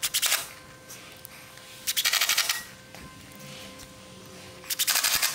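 Cordless impact driver driving screws through a steel fascia bracket into a timber frame, in three short rattling bursts about two seconds apart, the first very brief.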